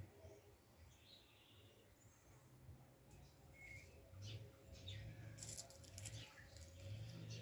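Faint, scattered bird chirps, with a few soft clicks about two-thirds of the way through.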